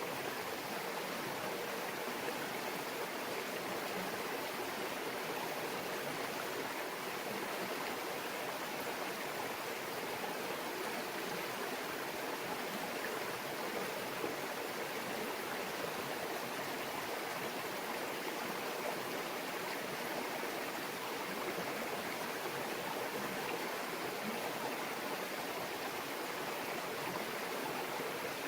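A small mountain brook babbling steadily over stones, an even rush of flowing water with no breaks.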